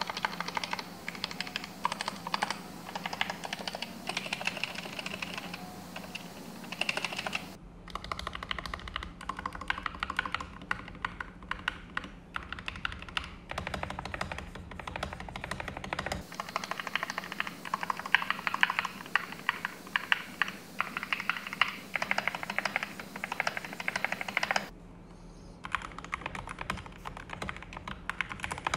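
Fast typing on a GK61 60% mechanical keyboard with Gateron optical red linear switches: first the stock board with ABS keycaps, then, after abrupt cuts, the modded board with lubed switches, tuned stabilizers, tape and foam mods, and PBT keycaps. It is recorded raw through a camera mic and a phone mic, with a steady low hum under the dense clacking.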